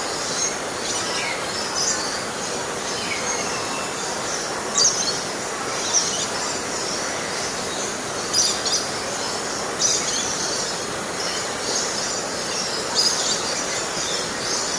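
Small birds chirping in short, high, irregular calls over a steady hiss.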